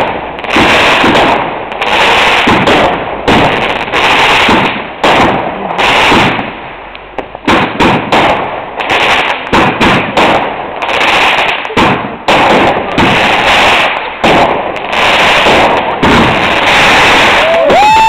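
Fireworks going off in a loud, rapid barrage of overlapping bangs and crackles, with hardly a gap between them. Near the end a steady whistling tone glides up and holds.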